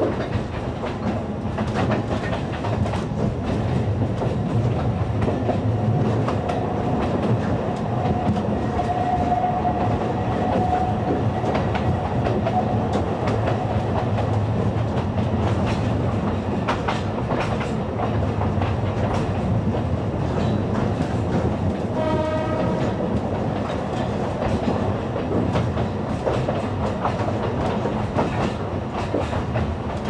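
Narrow-gauge Alishan Forest Railway train running, heard from on board: a steady rumble with repeated clicks of wheels over rail joints. A thin, high, steady squeal lasts a few seconds in the first half, and a short pitched tone sounds about two-thirds of the way through.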